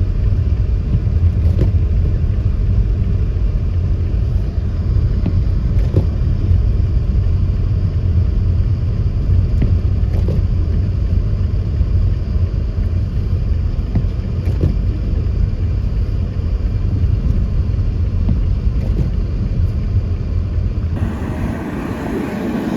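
Steady low rumble of a car driving, with faint ticks about every four seconds. Near the end it cuts to wind noise on the microphone.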